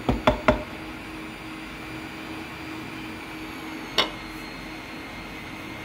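Steady mechanical hum with two sharp knocks in the first half second and one more sharp knock about four seconds in.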